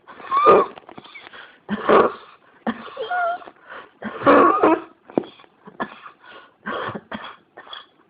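A person in a coughing fit: a rapid run of about a dozen harsh, barking coughs, with wheezy, whistling tones in some of them. The loudest coughs come about half a second, two seconds and four and a half seconds in.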